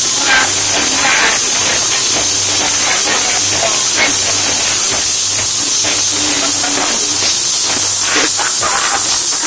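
Loud, steady hissing noise of a crowded room picked up by a phone microphone, with faint voices underneath.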